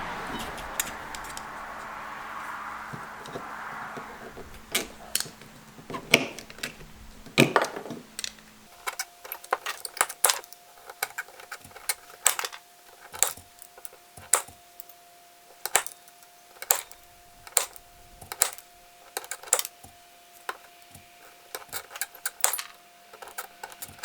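Tin snips cutting a hammered copper blank: a run of sharp, separate metallic snips at an uneven pace of about one a second. A rushing noise fades out over the first few seconds.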